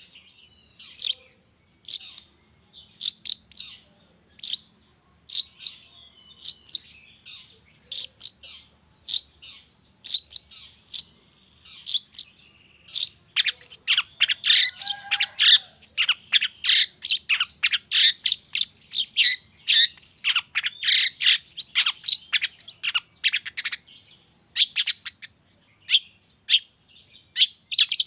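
Long-tailed shrike calling: sharp, high notes about once a second, then about halfway through a fast, dense run of notes lasting some ten seconds, then single sharp notes again.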